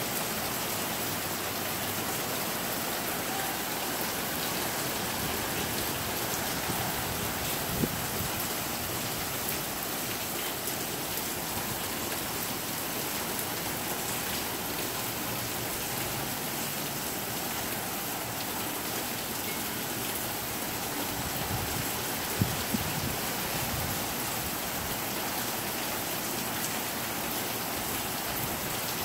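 Steady heavy rain falling, an even hiss without a break, with a few brief louder taps, one about eight seconds in and two more about twenty-two seconds in.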